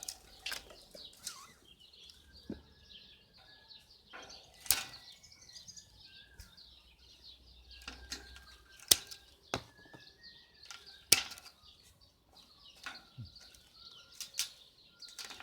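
Scattered sharp clicks and rustling, with birds chirping and whistling faintly in the background.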